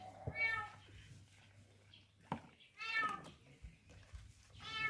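A cat meowing three times, each a short high-pitched call, with a sharp click between the second and third.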